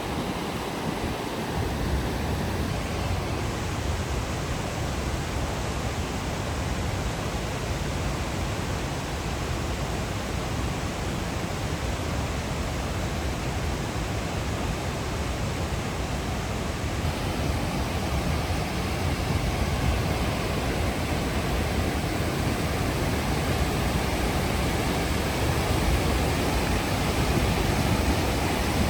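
Rushing water, a steady even rush of a fast river or waterfall, growing slightly louder about two-thirds of the way through.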